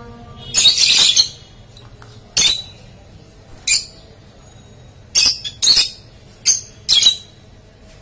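Peach-faced lovebirds giving a string of short, shrill calls, several in a cluster about a second in and the rest singly or in quick pairs.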